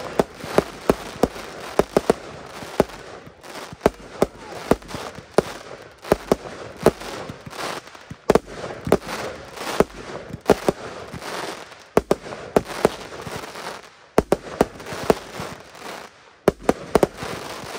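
Aerial fireworks bursting in rapid succession: dozens of sharp bangs, often in quick clusters, over a continuous crackle of glittering stars, with a few brief lulls.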